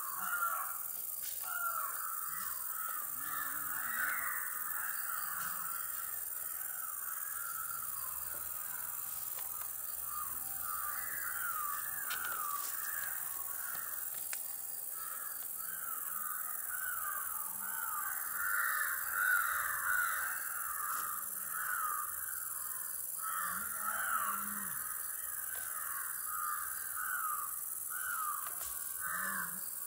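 A flock of birds calling continuously in many short overlapping calls that glide up and down in pitch, over a steady high hiss.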